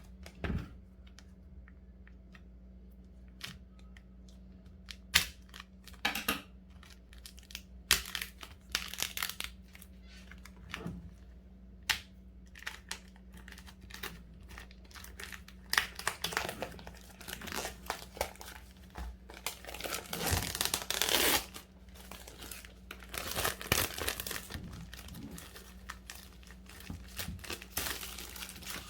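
Packaging being unwrapped by hand: thin plastic film and cardboard crinkling and tearing, with scattered sharp clicks and longer rustling stretches in the second half. A steady low hum underneath.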